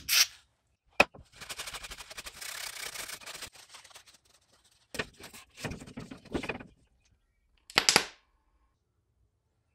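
Paper towel rubbing and rustling as a small plastic tab is wiped clean, with a sharp click about a second in, another near the middle, and a short burst of hissy noise near the end.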